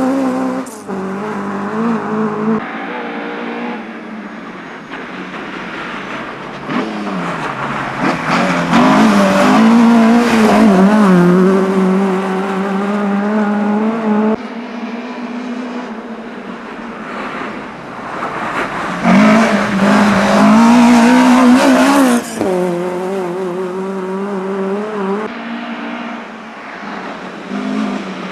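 Classic rally cars' engines running hard at high revs, the pitch climbing and dropping with throttle and gear changes as each car passes. The sound changes abruptly several times as one car gives way to the next.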